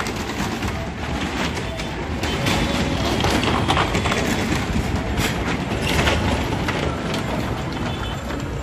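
A small hatchback's engine running hard and its tyres rumbling on the wooden planks of a well-of-death wall: a loud, dense, steady din with a few sharp knocks.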